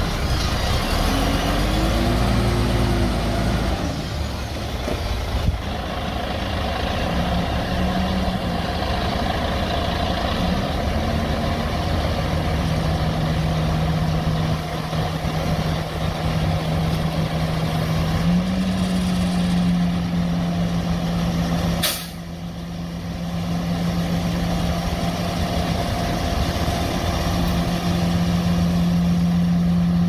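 Heavy diesel engines of a bulldozer and dump truck running at work. The engine note rises and falls over the first few seconds, then settles into a steady low drone that steps up slightly in pitch partway through. A sharp click comes about two-thirds of the way in, and the sound dips briefly after it.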